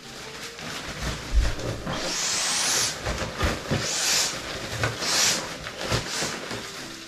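Montbell air mat being filled from its pump bag: squeezed air rushes through the mat's one-way valve in four hissing pushes, the first and longest about two seconds in, with handling clicks and a low thump between them.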